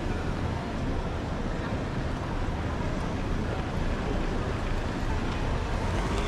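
City street ambience: a steady wash of outdoor noise with a low rumble and a faint murmur of passing voices.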